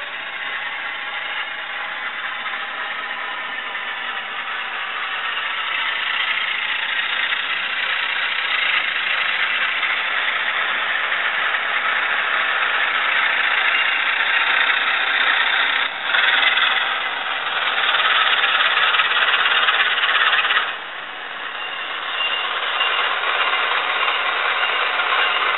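Simulated Class 47 diesel engine sound from a Zimo sound decoder, played through a tiny cube speaker in a Graham Farish N gauge model locomotive as it runs. It sounds thin, with almost no bass, grows louder after a few seconds, and drops sharply about three quarters of the way through before building up again.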